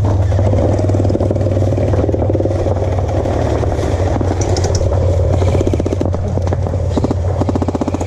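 Electric gel blaster firing on full auto, its gearbox cycling in a fast even rattle of shots, in two bursts in the second half, over a steady low rumble.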